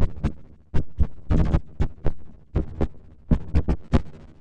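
Synthesized helicopter rotor sound from the Cobra 1 software synth: a run of beating blade pulses, some short strokes in quick pairs and some longer bursts of noise, unevenly spaced while the propeller-type settings are being switched.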